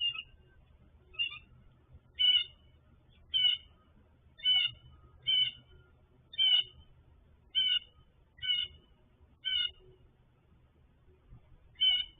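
A bird calling over and over: short calls about once a second, pausing briefly before a last one near the end.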